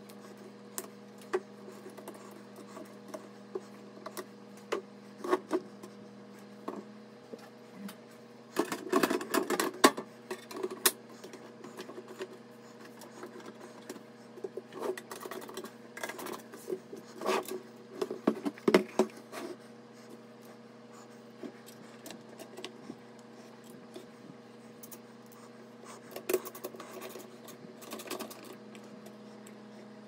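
Hands working on a desktop PC case: scattered clicks, rubbing and scraping as cables are tucked in and the side panel is fitted and screwed down. The louder clusters of scraping come about a third of the way in, around the middle and near the end, over a faint steady hum.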